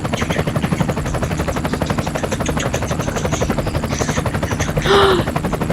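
Toy helicopter making a rapid, steady chopping rotor sound.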